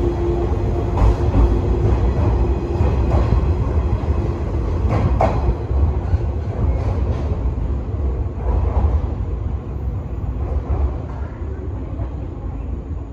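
JR 185 series electric train pulling out and running away along the track. A steady low rumble carries a few sharp clacks over rail joints in the first five seconds, then fades as the train recedes.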